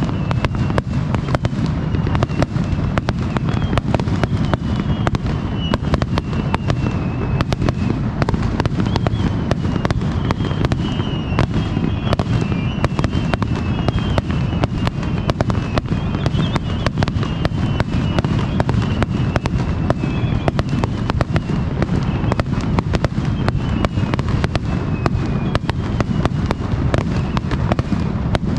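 A fireworks display firing densely: a continuous barrage of booms and crackling bursts, with faint wavering high whistles drifting over it through the middle.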